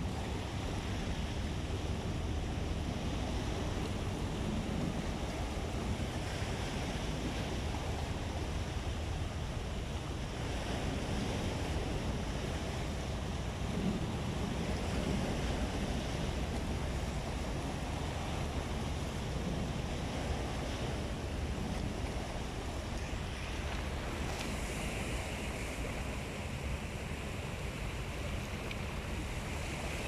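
Small ocean waves washing in among rocks and splashing over them at the shoreline, a steady wash of surf.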